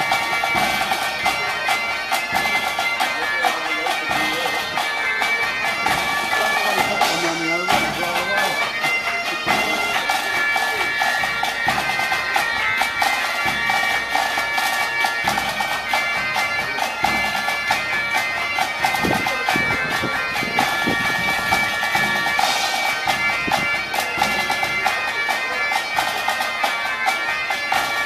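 Bagpipes playing a tune over a continuous drone.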